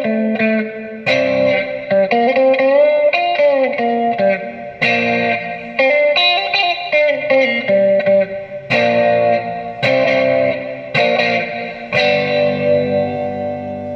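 Electric guitar with humbucking pickups through a VOX VT40X modelling amp, playing chords and picked notes with string bends. The last chord is struck about twelve seconds in and left ringing as it fades.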